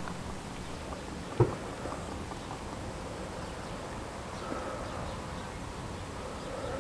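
Motor oil pouring from a bottle through a paper funnel into the engine's oil filler, over a faint steady buzz, with one light knock about a second and a half in.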